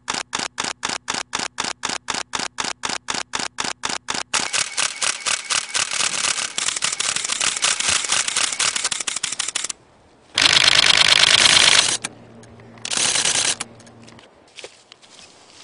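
DSLR camera shutters firing in continuous burst mode: sharp clicks about six a second at first, then a faster, overlapping rattle. After a brief pause come two short, loud bursts, then a few scattered clicks.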